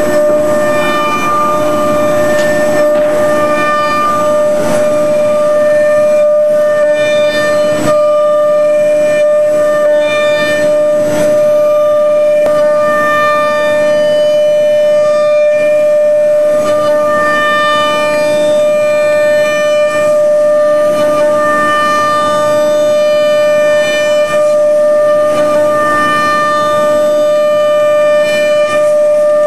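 A 5-horsepower CNC router spindle whining steadily at a high pitch as it mills an orthotic blank, with higher cutting tones that come and go every second or two as the cutter works through the material.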